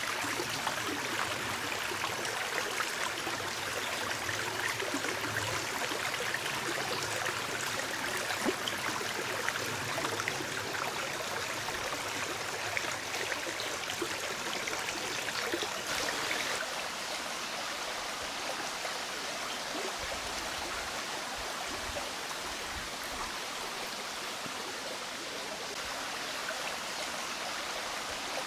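A small, shallow stream running steadily.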